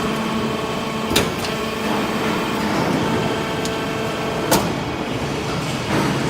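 Hydraulic scrap-metal baler running: a steady hum from its pump and motor, with a sharp metallic knock about a second in and another about four and a half seconds in.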